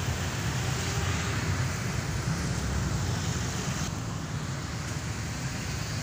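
Steady drone of slow, congested road traffic, cars and motorcycles, with no single vehicle standing out.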